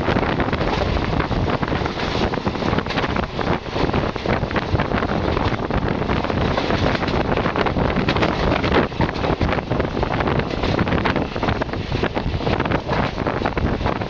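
Wind rushing over a microphone held out of the open window of a moving passenger train, over the train's running noise on the track. Loud and steady throughout.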